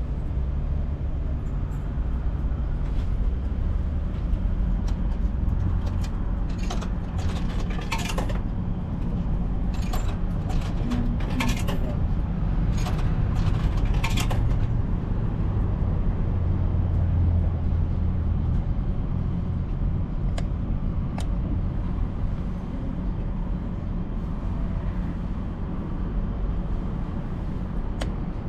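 Coins clinking into the slot of an old ramen vending machine: a run of sharp metallic clicks between about six and fourteen seconds in, over a steady low rumble.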